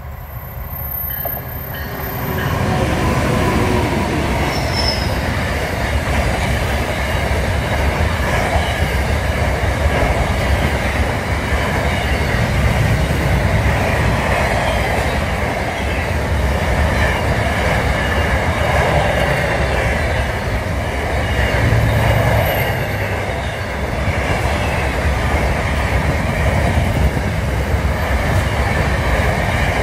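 Freight train passing close at speed. The sound builds over the first two or three seconds as the locomotive arrives, then a long string of container wagons runs by with a steady rumble of wheels on the rails.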